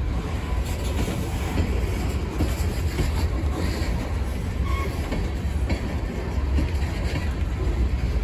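Covered hopper cars of a freight train rolling past close by: a steady rumble of steel wheels on the rails with occasional clicks.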